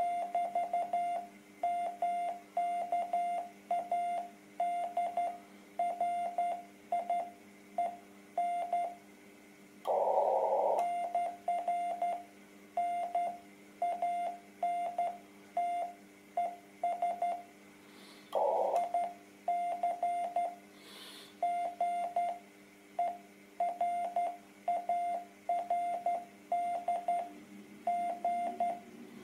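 Morse code (CW) on a shortwave transceiver: a single tone keyed on and off in dits and dahs on the 30 m band. A short rush of noise breaks in about a third of the way through and again past the middle, over a faint steady hum.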